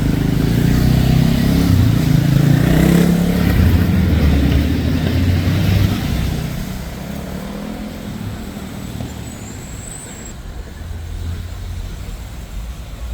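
A large motor vehicle's engine running close by on a city street, loudest for the first six seconds and then dropping away to a lower steady traffic rumble. A brief high squeak about ten seconds in.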